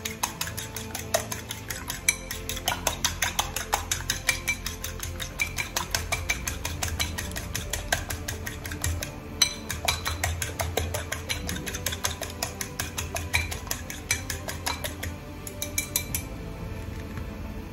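Fork beating eggs in a ceramic bowl: rapid clicking of the metal tines against the bowl, several strikes a second, easing off near the end.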